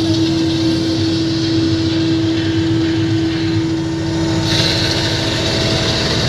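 Tractor engine running steadily while pulling an orchard air-blast sprayer, a constant drone over a low rumble and a hiss, heard from inside the tractor cab. The hiss grows louder about four and a half seconds in.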